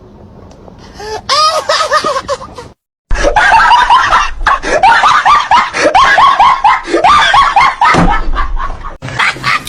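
Laughing-dog meme sound effects: a short clip of pitched laughing cries, a sudden cut to silence, then a longer, loud clip of repeated yelping laugh-like cries, about two a second.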